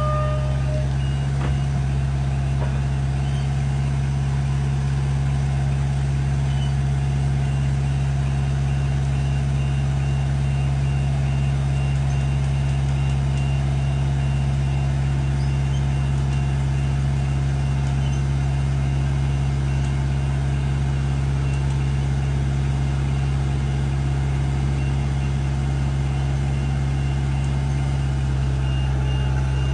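Heavy equipment engine running steadily at a constant speed, with a faint high-pitched alarm beeping in a steady rapid rhythm from about seven seconds in.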